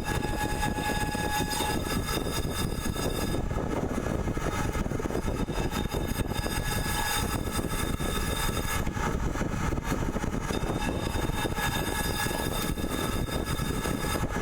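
CNC pipe-threading machine running steadily: a dense low rumble with thin high whining tones that come and go during the cut.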